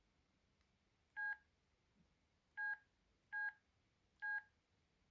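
Ericsson A2618s mobile phone's keypad beeping as its keys are pressed to scroll through the menus: four short beeps of the same pitch, roughly a second apart.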